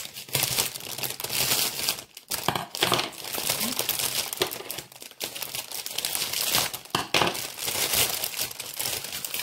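Clear plastic gift wrap around a bouquet crinkling and crackling unevenly as it is handled and pulled at, to get it off.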